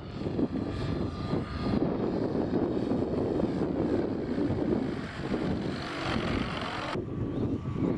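Radio-controlled Hangar 9 P-51 Mustang model plane flying past, its engine and propeller strongest as it passes close overhead about six seconds in. Heavy wind noise on the microphone runs underneath.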